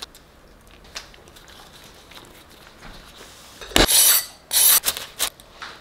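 A knife sawing through a toasted crunchwrap's crisp tortilla on a wooden cutting board: three loud crunching strokes near the end, after faint handling sounds while the filling is laid on.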